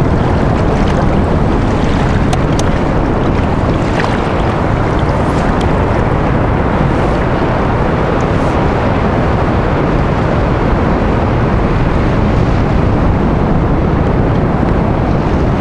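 Steady wind rushing over the microphone, with choppy sea water slapping around a kayak. A few faint clicks come in the first half.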